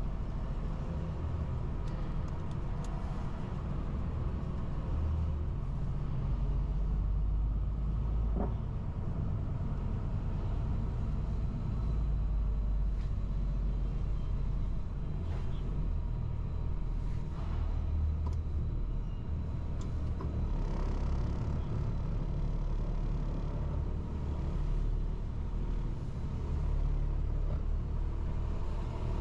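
Cargo truck's diesel engine running at low speed as the truck pulls slowly forward, heard from inside the cab as a steady low rumble.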